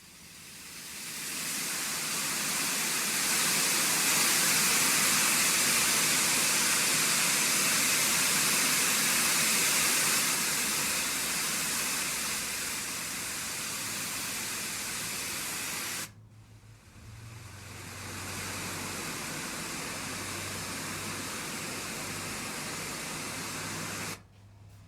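Letsfit TP1 sleep sound machine playing steady white noise, a hiss that fades in and eases down a little partway through. About sixteen seconds in it cuts off, and after a brief gap a second, slightly quieter noise setting with a low hum under it fades in, then stops near the end.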